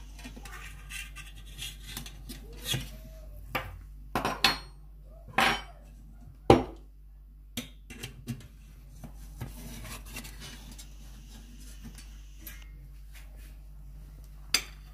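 Utensils knocking and scraping against a steel pan and its perforated steel plate: irregular sharp clinks and knocks, the loudest about six and a half seconds in, with a last pair near the end.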